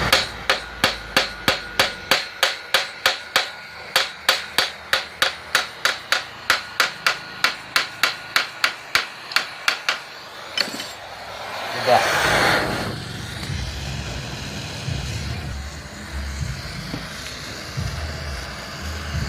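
A hammer tapping in quick, even strokes, about three and a half a second, for some ten seconds before it stops. About two seconds later comes a single louder scraping rush.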